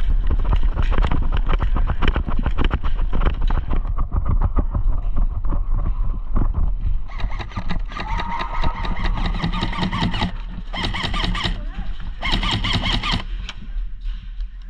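Rumble and crackle of wind and handling noise on an action-camera microphone as the wearer moves, with scuffs and rustles throughout; from about seven seconds in, several louder noisy gusts come and go, with faint muffled voice-like sounds.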